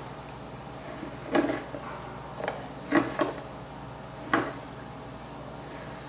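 Steel spoon stirring sugar into warm milk in a small stainless steel bowl to dissolve it, with a few soft clinks of the spoon against the bowl.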